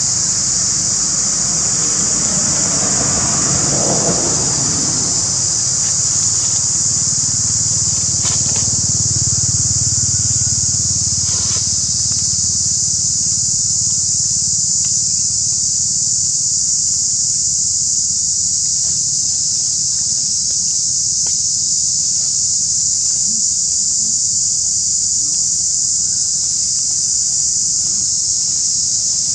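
Steady, high-pitched drone of insects that runs through the whole stretch. A low rumble sits under it for the first several seconds, then fades.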